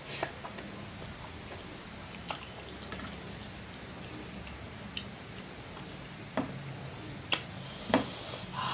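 Close-miked eating sounds: chewing pork belly with soft wet mouth clicks, and fingers squishing rice on the plate. A few louder smacks come in the last couple of seconds.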